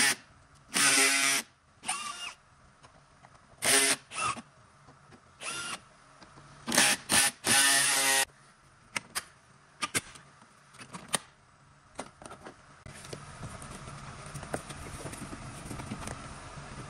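Cordless drill-driver backing out the screws that hold a BMW's front bumper, its motor whining in short bursts of a second or less, six or so times. A few sharp clicks follow, and then a steady low hum.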